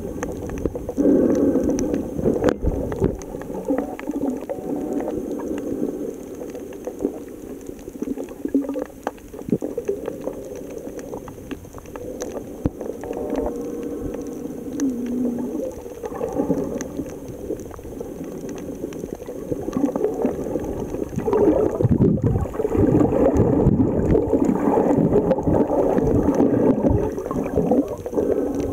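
Muffled underwater gurgling and sloshing of water around a submerged camera. It swells and fades unevenly and grows louder for the last quarter.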